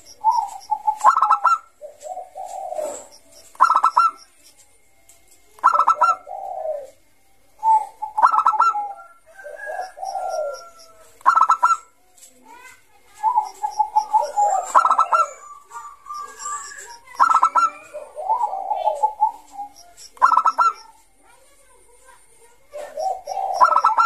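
Zebra dove (Bangkok-type perkutut) singing: about ten cooing phrases with short pauses between them, each a lower warbling coo run into a quick stuttering burst of higher notes.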